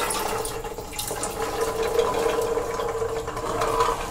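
Soaked chickpeas sliding out of a steel bowl into an aluminium pressure cooker in a steady, wet-sounding rush.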